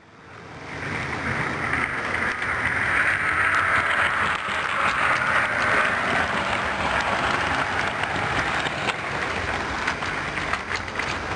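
Garden-scale model train running past on its track, its wheels and motor making a steady rushing sound that swells as it passes close and then eases, with scattered light clicks near the end.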